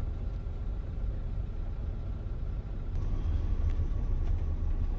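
Motorhome engine and road noise as it moves slowly, a steady low rumble that grows a little louder about three seconds in.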